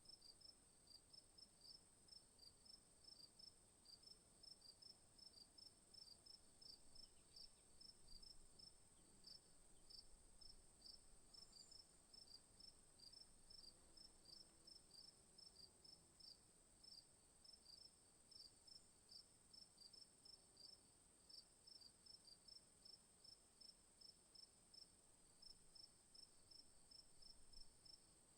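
Faint chorus of crickets: short chirps repeating evenly several times a second over a continuous high-pitched trill.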